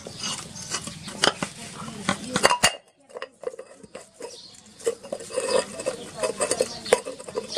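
Metal parts of a small electric motor's casing knocking and clinking as the motor is handled and taken apart by hand: a string of sharp knocks and clicks, the loudest about a second and two and a half seconds in.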